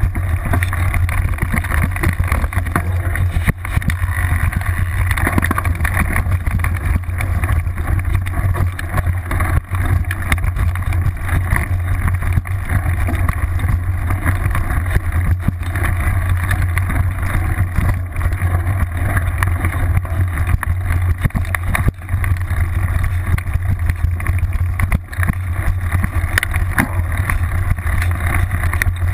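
Mountain bike ridden fast over a dirt and gravel trail, heard from a camera on the seatpost: steady wind buffeting on the microphone and tyre rumble, with frequent knocks and rattles as the bike goes over bumps.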